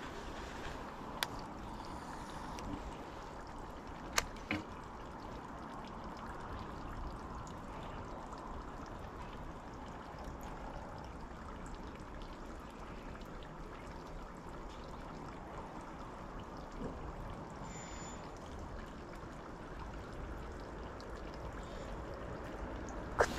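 Steady faint outdoor background noise, like distant flowing water, with a few short sharp clicks; the loudest click comes about four seconds in.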